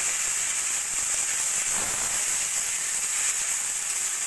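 Vegetables sizzling steadily as they fry in hot oil in a wok, with ginger-garlic paste just added and a metal spatula stirring them.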